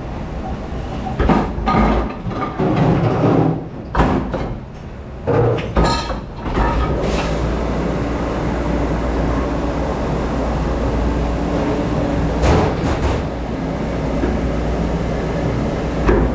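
Irregular clattering and knocking of things being handled in a dish pit, then a steady low hum from about six seconds in, with a knock now and then.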